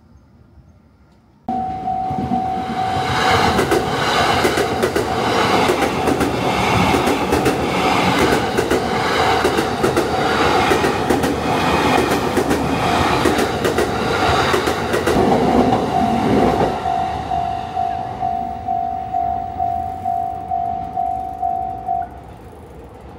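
A train passing close by, its wheels clattering rhythmically over the rail joints, with a steady ringing tone above it. The sound starts abruptly about a second and a half in. Later the tone pulses about twice a second while the train noise fades, and the tone stops about a second before the end.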